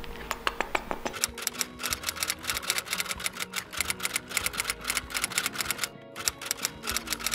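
Rapid, even typing clicks, a typing sound effect that goes with on-screen text being written out, over soft background music. The clicks start about a second in, pause briefly near six seconds and then resume.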